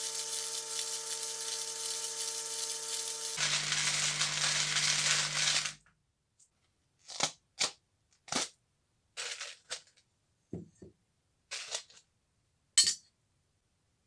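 Electric drill spinning a plastic-bottle tumbler full of loose chips with a brass buckle inside: a steady rattling hiss over the drill motor's hum, cutting off just before six seconds in. Then about nine separate clinks and clicks as the chips and the brass buckle are handled, the sharpest near the end.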